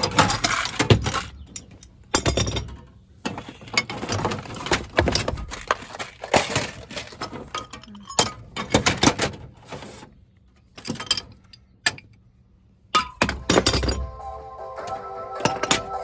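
Irregular clattering, clinks and knocks of hard equipment being handled, with a lull about two-thirds through. Background music with steady tones comes in near the end.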